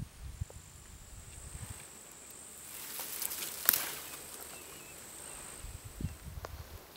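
A steady high-pitched insect trill, which stops about six seconds in. About three seconds in comes a brief rustle with a sharp click, and a few low thumps sound near the start and again around six seconds in.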